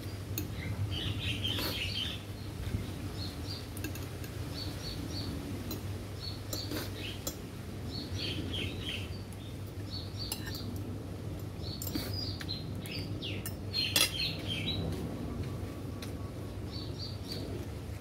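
Metal spoon and fork clinking and scraping against ceramic plates while eating, with a scatter of sharp clinks, the loudest about fourteen seconds in. Small birds chirp repeatedly in short high runs behind it.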